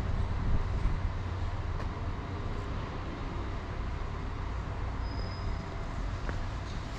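Steady low rumble of outdoor street noise, with a brief thin high whistle about five seconds in.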